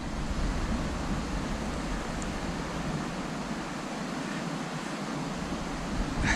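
Steady rushing noise with no distinct events; a low rumble grows near the end.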